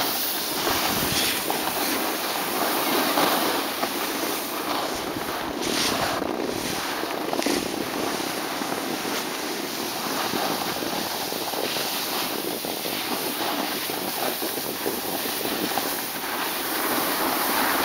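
Snowboards sliding over packed, groomed snow, a steady scraping hiss, with wind buffeting the microphone.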